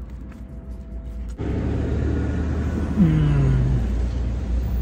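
A truck driving past outside the car, heard from inside the cabin: a low engine rumble that starts suddenly and swells, its engine tone falling in pitch about three seconds in as it passes.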